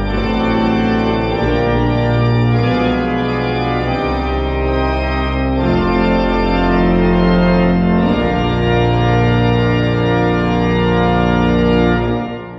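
Pipe organ, the 1895 Hill & Son instrument, playing a loud passage of sustained full chords over a deep pedal bass, the chords shifting every second or two. Near the end the final chord is released and dies away in the church's reverberation.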